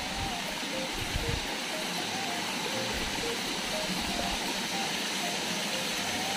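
Small waterfall splashing over rock ledges into a pool: a steady rushing hiss. Faint background music plays over it, a simple tune of short stepped notes.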